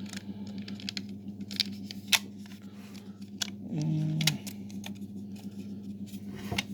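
Hard plastic model-kit parts clicking and tapping as they are handled and pressed together in a test fit, with scattered sharp ticks over a steady low hum. A short low tone sounds about four seconds in.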